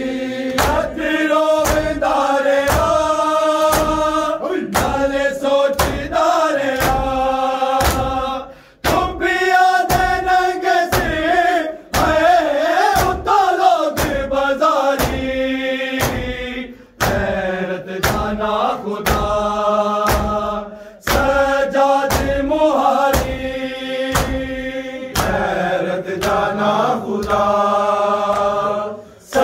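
A group of men chanting a noha (Shia mourning lament) in unison over rhythmic bare-hand chest-beating (matam), about two slaps a second. The chant breaks briefly between lines.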